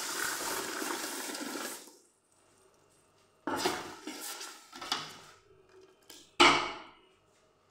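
Tomato juice poured into a hot stainless-steel pot of sautéed onion and pepper, sizzling loudly as it hits and stopping about two seconds in. Then a slotted metal spoon stirs and scrapes the sauce in the pot, with one sharp clank of metal against the pot near the end.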